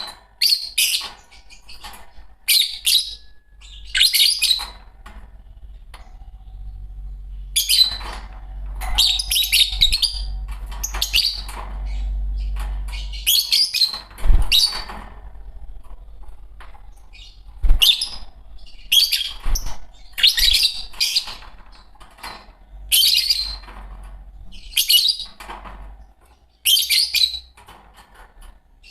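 Fischer's lovebirds chirping in repeated bursts of shrill, high chirps, one burst every second or two, over a low background hum.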